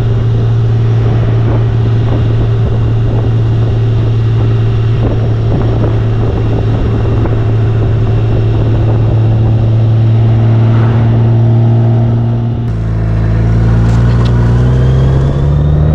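Honda Valkyrie's 1832cc flat-six engine running at a steady cruise, with wind buffeting the microphone. About three-quarters through the sound changes abruptly and the engine then climbs in pitch as the bike accelerates.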